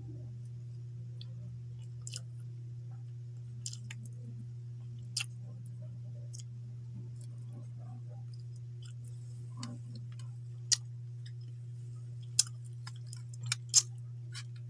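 Mouth sounds of someone eating with her fingers: scattered sharp lip smacks and clicks, a few seconds apart at first and closer together near the end. Under them runs a steady low hum.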